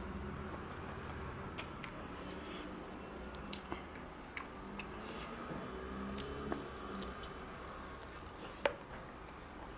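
Close-miked wet chewing and mouth sounds of someone eating mutton curry with rice, with scattered small clicks and one sharper click near the end.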